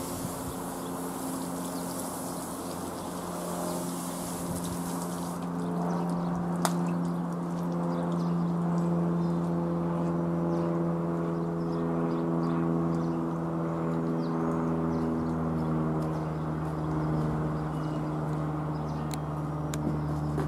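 Piper PA-28-180 Cherokee's four-cylinder Lycoming O-360 engine and propeller droning steadily as the light aircraft flies overhead. It grows louder a few seconds in and drops slightly in pitch in the later part as it passes.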